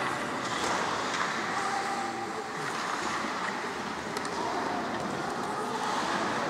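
Steady hiss of ice hockey arena ambience, with a few faint clicks.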